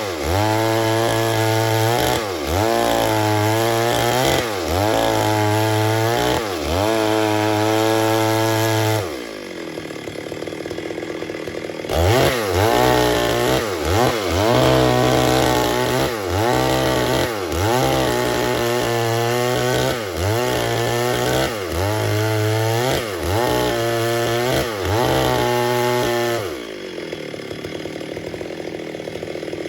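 Stihl MS 382 two-stroke chainsaw cutting wood at full throttle, its revs dipping and recovering about once a second under load. About nine seconds in it drops to idle, then it is throttled up and cuts again, falling back to idle near the end.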